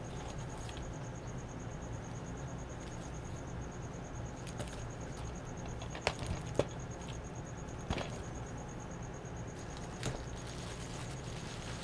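A few light clicks and taps from items being handled in an opened package, over a steady low hum and a faint steady high whine.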